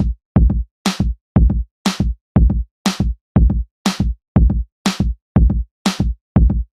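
Electronic background music with a steady drum-machine beat: kick drum and snare alternating at about two beats a second.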